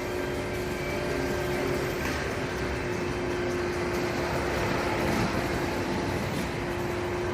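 Vehicle engine running steadily, with a constant hum held at one pitch.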